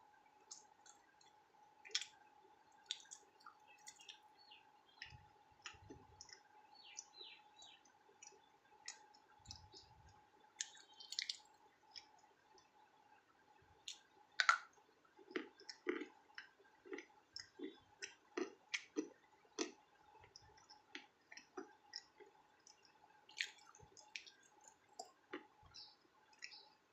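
Close-miked eating of crunchy food: sharp crunches and mouth clicks throughout, with a stretch of steady chewing at about two bites a second in the middle.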